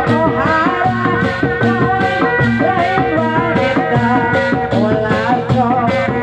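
Live Sundanese bangreng music, loud and continuous: a fast, steady percussion beat under a melody line that slides up and down in pitch.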